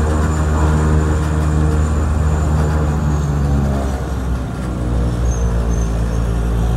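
Turboprop aircraft engine and propeller drone, heard inside the cabin as a loud, steady hum of several deep tones. The note of the drone changes about four seconds in.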